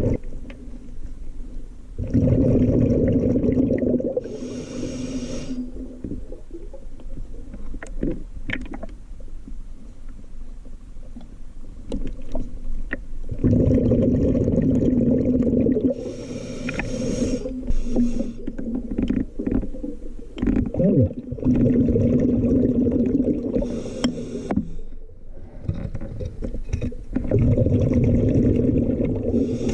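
A scuba diver breathing through a regulator underwater. Four times, exhaled bubbles rumble out for two to three seconds each, and short hissing inhales through the regulator come in between.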